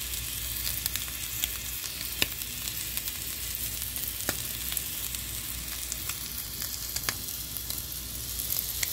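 Shrimp sizzling in oil in a hot frying pan: a steady high hiss with scattered sharp pops of spitting oil.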